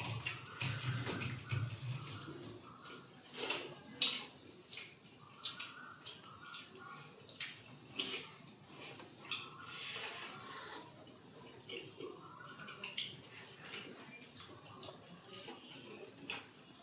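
Steady high-pitched chorus of crickets, with scattered short clicks and knocks over it.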